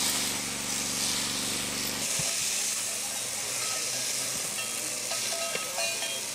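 Electric sheep-shearing machines running, with a steady high hiss. A lower machine hum cuts off about two seconds in.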